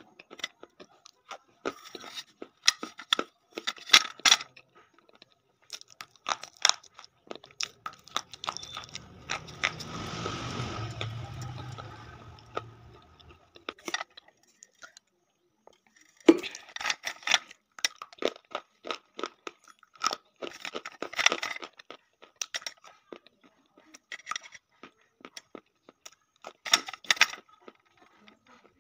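Close-up crunching and chewing of coloured blackboard chalk sticks: clusters of sharp, crisp crunches as pieces are bitten off and chewed. Partway through comes a few seconds of duller, steadier rustling noise.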